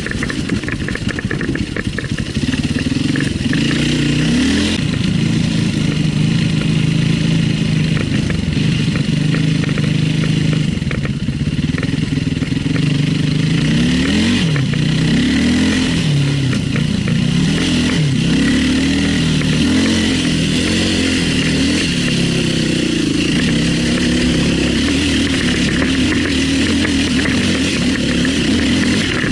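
Enduro dirt bike engine running under load on a hill climb, steady at first, then revving up and down repeatedly from about halfway through as the throttle is worked.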